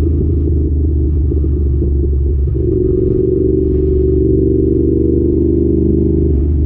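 Yamaha YZF R7's parallel-twin engine running through an Arrow exhaust at a steady cruise, its pitch holding level with no revving.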